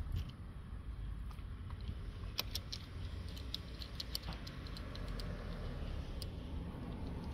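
Scattered small metallic clicks and taps as the aluminium phone mount's parts and a hex key are handled and fitted, coming in a quick cluster partway through and once more near the end, over a steady low rumble.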